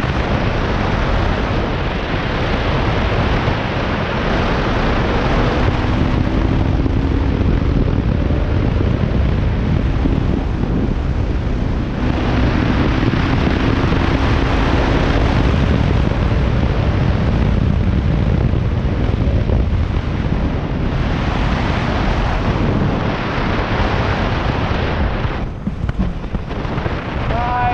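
Bajaj Pulsar RS200's single-cylinder engine on its stock exhaust, running under load through the gears, its pitch rising several times. Heavy wind noise buffets the microphone.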